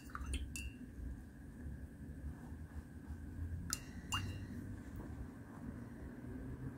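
Paintbrush clinking against the inside of a ceramic mug of rinse water as the brush is washed out: three quick clinks at the start and two more about four seconds in.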